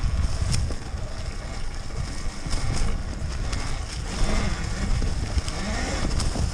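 Talaria Sting MX4 electric dirt bike riding slowly over rough singletrack: a steady low rumble from the ride, scattered clicks and knocks, and a faint steady high whine.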